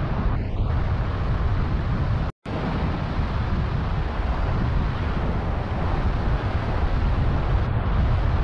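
Wind buffeting the microphone, with surf breaking behind it: a steady, loud rush heaviest in the low end. It cuts out completely for a moment about two seconds in.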